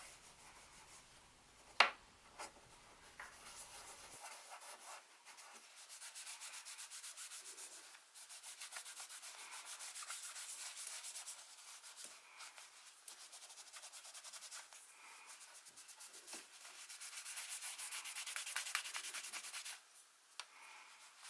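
Quick back-and-forth hand rubbing on a small wooden puzzle box in several spells, as its finish is redone after beeswax left a white residue. There is a sharp tap about two seconds in.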